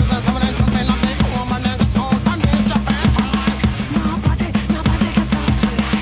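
NUX DM-210 electronic drum kit played through its module's own drum sounds, kick and snare keeping a steady rock beat along with a backing rock track with singing.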